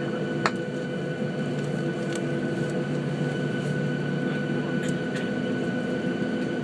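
Jet airliner cabin noise before the takeoff roll: the engines idling, a steady hum with a few constant tones. A single sharp click comes about half a second in.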